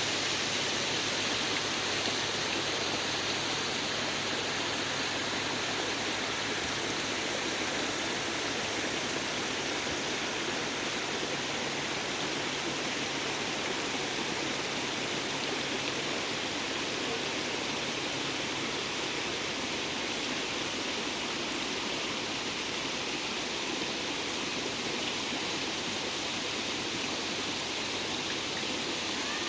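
Spring-fed stream running steadily: an even rush of flowing water.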